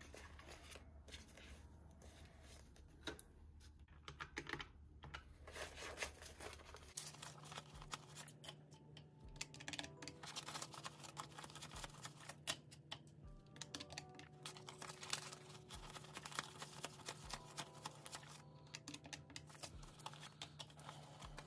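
Paper banknotes being counted by hand: soft, quick flicks and rustles of the bills. Quiet background music with a steady beat comes in about seven seconds in.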